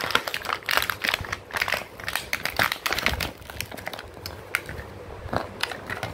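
Thin clear plastic blister packaging crinkling and clicking as it is handled, with irregular crackles that are busiest in the first few seconds and thin out later.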